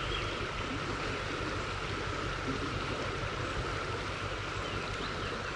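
Shallow rocky creek running, a steady rush of water over stones.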